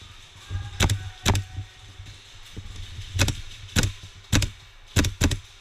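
Gas blowback airsoft rifle firing single shots, about seven sharp cracks at uneven intervals, some in quick pairs.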